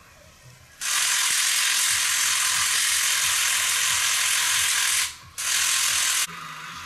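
A loud, steady hissing noise that starts abruptly about a second in, breaks off for a moment about five seconds in, then resumes and cuts off suddenly.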